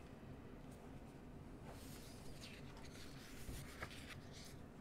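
Faint rustle of a paper picture-book page being turned, a few soft scrapes and light ticks in the second half.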